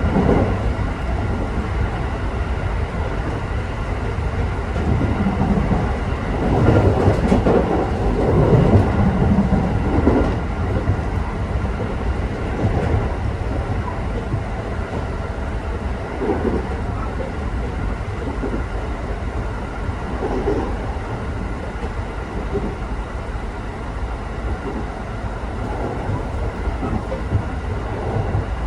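Electric local train running on the Tokaido Main Line, heard from inside the carriage: a steady rumble of wheels on rail with irregular clatter over the track, growing louder for a few seconds about a quarter of the way through.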